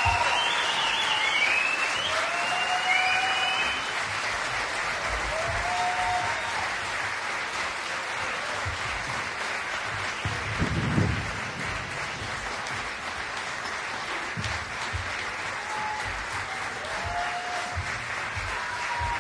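Audience applauding steadily, a little louder in the first few seconds, with short rising-and-falling calls from the crowd over the clapping near the start and a few more later. A dull thump about eleven seconds in.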